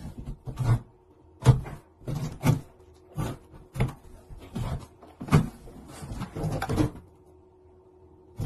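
Jigsaw puzzle pieces knocking and rustling on a tabletop as a dog noses and mouths through them: irregular soft knocks, about one a second, that stop about seven seconds in.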